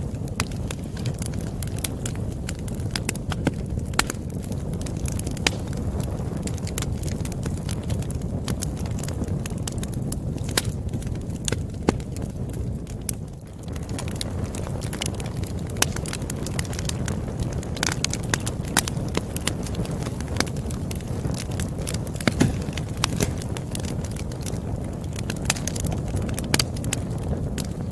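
Campfire burning, with a steady low rumble under irregular sharp crackles and pops from the burning wood. The sound dips briefly about halfway through.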